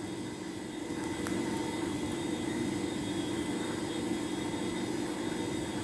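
Steady low background hum, like a fan or air conditioning, with a faint click about a second in.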